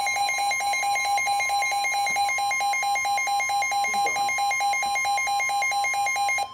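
Weather alert alarm: a rapid, evenly repeating electronic beep from a weather radio receiver over the NOAA Weather Radio's steady warning alarm tone, signalling a severe thunderstorm warning. The beeping cuts off abruptly near the end while the steady tone continues.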